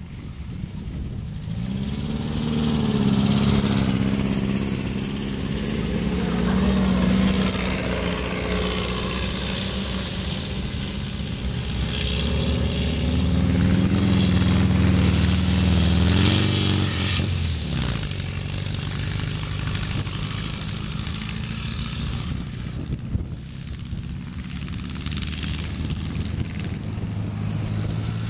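Dune buggy engines running and revving as the buggies drive through sand, the pitch climbing and falling several times. About two-thirds through the revs drop suddenly and the engine settles into a steadier, lower drone.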